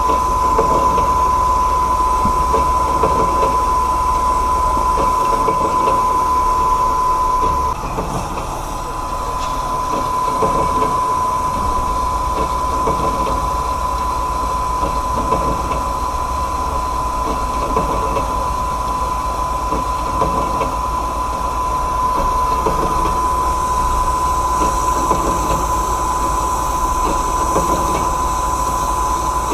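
Band saw running and cutting 304 stainless steel, a steady mechanical noise with a continuous high whine and a low hum, easing slightly for a moment about eight seconds in.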